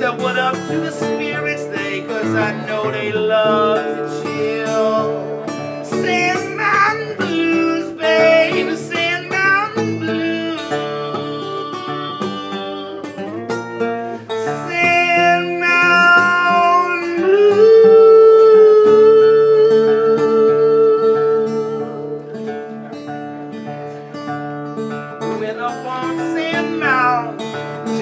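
A man singing to his own acoustic guitar, live, the guitar picked and strummed under a wavering vocal line. A little past the middle he holds one long note for several seconds.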